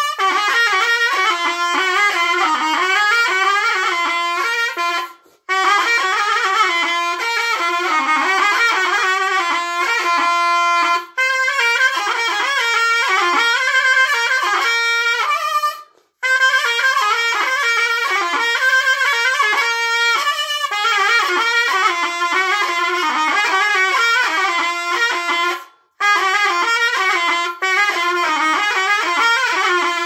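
Solo zurna (Turkish double-reed shawm) playing a fast, ornamented folk melody in long phrases, with no drum. It breaks off briefly about five, sixteen and twenty-six seconds in.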